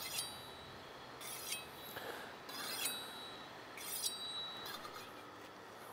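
A chef's knife drawn along a honing steel: four scraping strokes about a second or so apart, each with a brief high metallic ring.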